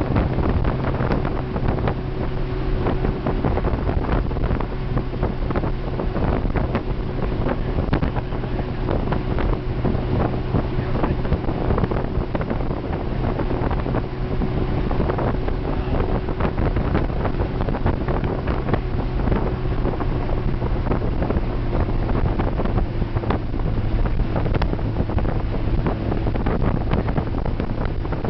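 Steady engine drone of a desert safari vehicle, with heavy wind buffeting on the microphone.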